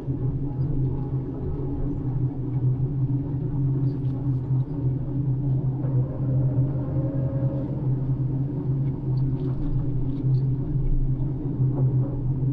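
Floating crane's engine running steadily inside the operator's cabin, a deep, even drone, with a faint higher whine coming in about six seconds in for a second or so.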